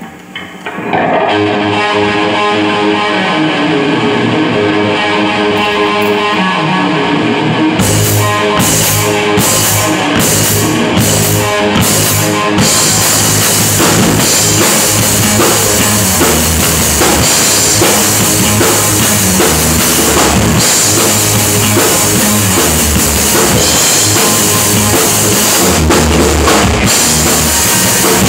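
A rock band playing live, loud: electric guitars through amplifiers open alone, the drum kit comes in with a few separate hits about 8 seconds in, and from about 12 seconds the full band plays together with steady cymbals.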